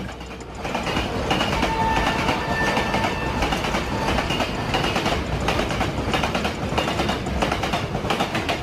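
Indian Railways double-stack container freight train passing close by, its wagons making a steady rumble with wheels clattering over the rails.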